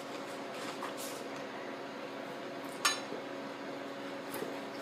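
A sharp clink of tableware about three seconds in, with a couple of fainter taps, over a steady low room hum.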